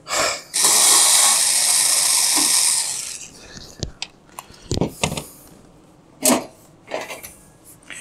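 Cordless power screwdriver running steadily for about two seconds, backing out the screws that hold the top cover of an Octominer X8 mining-rig case. Then come a few short knocks as the sheet-metal cover is lifted off.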